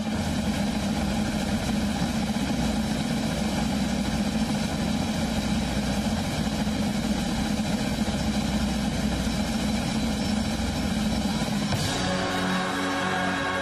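Steady, loud rumble of a train running through a tunnel. About twelve seconds in it gives way to music with held tones.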